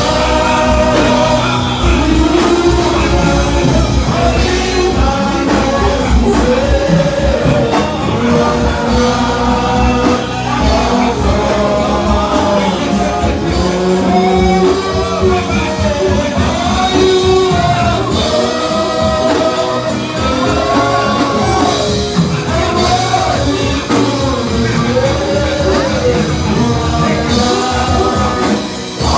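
Loud music with singing over a band accompaniment and a steady beat.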